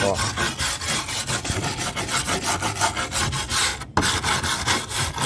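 Steel wire brush scrubbing back and forth over a fibre-cement roof tile in quick, even rasping strokes, several a second, with a brief break about four seconds in. The brush is scouring off dried-out old asphalt membrane to clean the surface for a patch.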